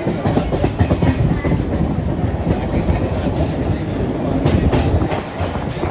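Train running along the track: a steady heavy rumble of wheels on rails, with irregular sharp knocks throughout.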